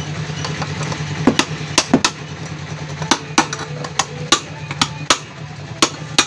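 Irregular sharp clicks and knocks of a hand tool working the back end cover off a water pump motor, about a dozen over a few seconds, with a steady low hum underneath.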